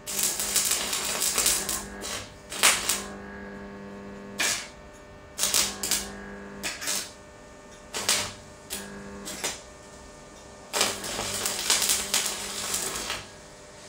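Electric arc welding: the arc crackles and sputters in repeated bursts as it is struck and broken, with a few short spurts and two longer runs, one at the start and one near the end. The welding set's steady hum sits underneath.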